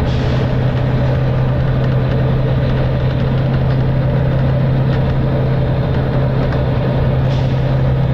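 Volvo B9TL double-decker bus's diesel engine running at a steady speed, a constant low drone heard from inside the bus. Two brief faint hisses come at the start and about seven seconds in.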